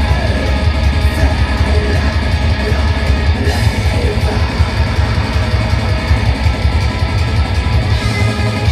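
Black metal band playing live: electric guitar in a loud, dense full-band mix, heard from within the crowd.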